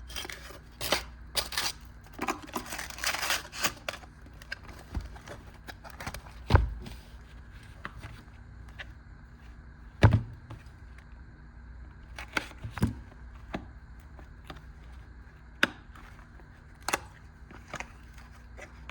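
Packaging being opened and handled by hand: rustling from about one to four seconds in, then scattered clicks and light knocks, with two louder thumps, the first near six and a half seconds and the second near ten.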